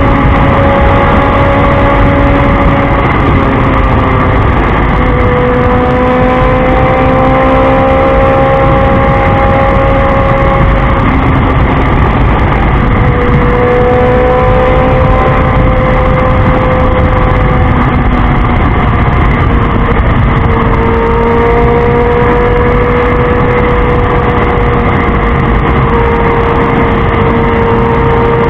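Motorcycle engine running at highway speed under heavy wind rush on the microphone, its pitch drifting slowly up and down with the throttle.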